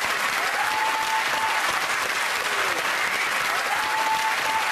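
Studio audience applauding steadily, with two long held calls from voices in the crowd rising over the clapping, one early and one near the end.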